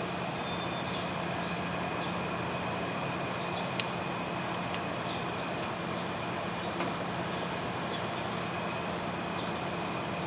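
Air-conditioner compressor humming steadily while powered through a larger 60 µF capacitor, an attempt to break a seized compressor free. A single sharp click sounds about four seconds in.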